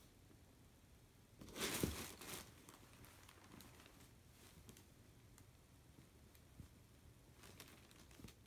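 Plastic bag crinkling and fabric rustling as a cat pushes into a folded futon stuffed inside the bag: one burst of crinkling about a second and a half in, lasting about a second, then fainter rustles near the end.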